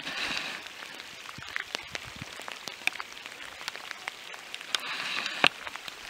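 Steady rain falling on a lake and grass: an even hiss with many scattered sharp ticks of drops striking close by.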